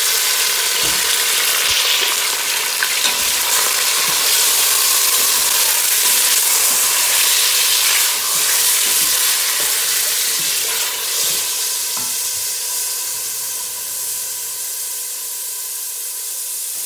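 Chunks of raw mutton sizzling loudly in hot oil with ginger-garlic in a stainless steel pot, just added and being browned. A wooden spatula stirs them, with occasional knocks against the pot; the sizzle eases slightly over the second half.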